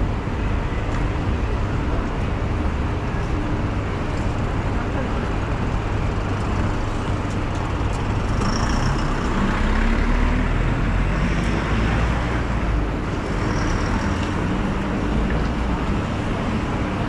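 Road traffic on a busy city street: steady engine and tyre noise from passing cars and buses, growing louder in the middle as a vehicle goes by.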